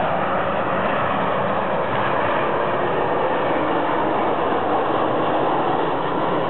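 Jet airliner flying low on its landing approach, its engines making a steady, even noise.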